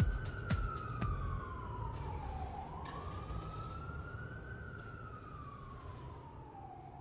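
A wailing siren rising and falling slowly in pitch, over a low rumble, fading away near the end. A few sharp drum hits from a beat sound in the first second.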